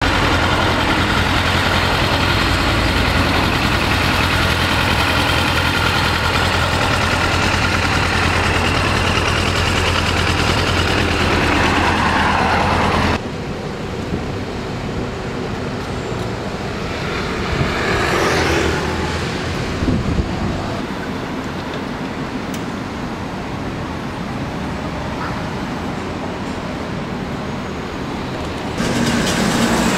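Suzuki GSX400S Katana's inline-four engine idling steadily through its Yoshimura Cyclone exhaust. It drops suddenly to a quieter level about 13 seconds in and comes back louder near the end. A passing vehicle swells and fades about 18 to 20 seconds in.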